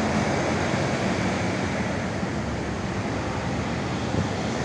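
Steady rush of passing road traffic, buses and cars, an even noise with no distinct events.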